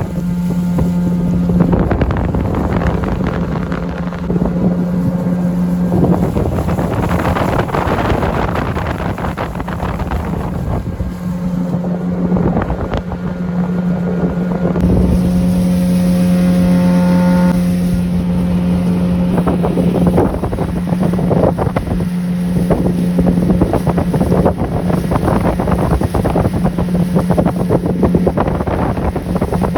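A motorboat's engine running steadily, with wind buffeting the microphone.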